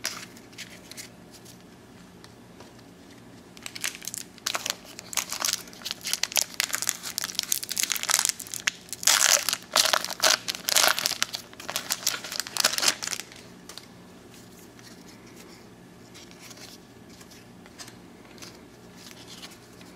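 A pack of 1993 Donruss Series 2 baseball cards being torn open by hand, its wrapper crinkling and tearing. The crackling starts a few seconds in, is loudest about halfway through, and stops about two-thirds of the way through.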